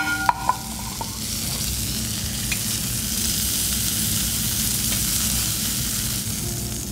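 Chicken livers frying in hot rendered pancetta fat in a pan, a steady sizzling hiss that swells a little midway. Near the start, a few metallic clinks that ring briefly.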